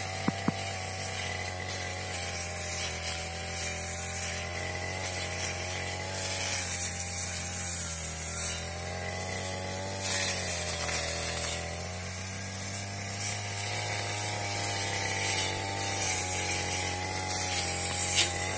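Backpack brush cutter engine running steadily while it cuts through vines and undergrowth. Its pitch wavers up and down as the cutting head meets and clears the growth.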